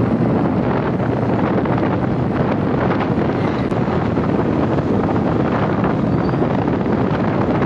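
Wind buffeting the microphone: a loud, steady, blustery rumble.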